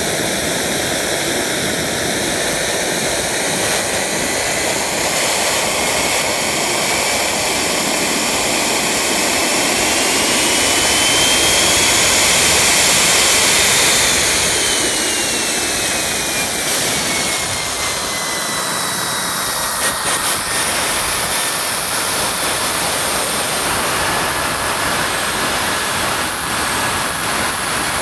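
Small 50 mm model jet turbine (13 N thrust) running on a test bench: a steady jet rush with a high whine. Over the first half the whine rises in pitch and grows louder as the turbine spools up, then it falls back over several seconds and settles to a lower, steady whine.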